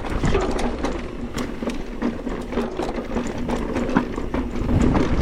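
Mountain bike riding down a rough dirt trail: tyres rolling over the ground, with the bike rattling and knocking over bumps and a steady buzz underneath. A sharp knock stands out about four seconds in.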